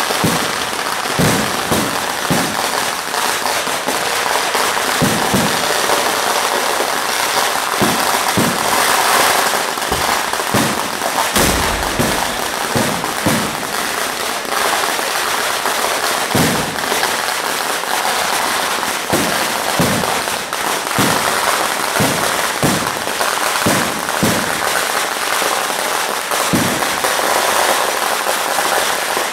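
Vedikettu temple-festival fireworks going off in a dense, continuous barrage of firecracker bangs and crackling, with a deeper, heavier boom about eleven seconds in.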